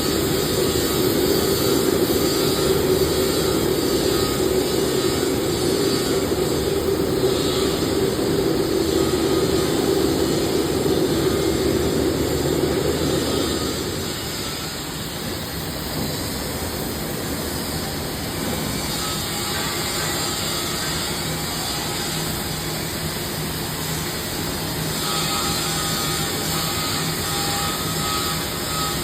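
Gas-cutting torch on a CNC profile cutting machine burning through steel plate, a steady hissing blast of the cutting flame. It drops in level about halfway through, and faint steady machine tones follow.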